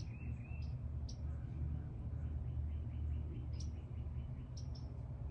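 Birds chirping outdoors: short high chirps, with a quick trill of repeated notes through the middle, over a steady low rumble.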